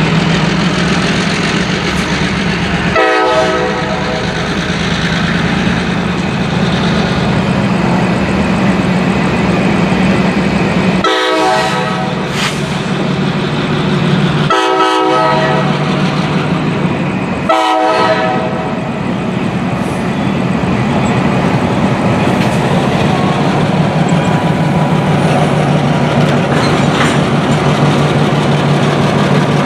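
Diesel freight locomotive running with a steady low engine drone as it approaches, sounding its horn: one short blast, then about eight seconds later two long blasts and a short one.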